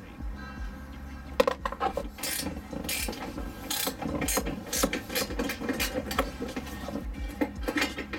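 Irregular clicks and metal clinks as the bolts and the stamped-steel OEM B-pillar floor bar of an Acura RSX are worked loose.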